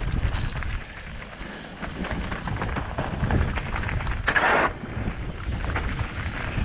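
Mountain bike descending a rocky gravel trail: wind buffeting the helmet-mounted camera's microphone, with the tyres and bike rattling over stone slabs and loose gravel. A short, louder rush of noise comes about four seconds in.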